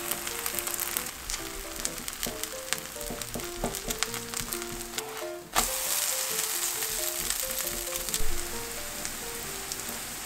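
Grated-potato pancake batter sizzling and crackling in oil in a nonstick frying pan; the sizzle turns louder about halfway through. Light background music with a simple stepping melody plays underneath.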